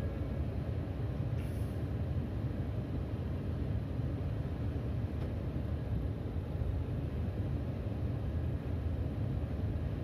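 Steady low rumble of passing vehicles at a railway level crossing.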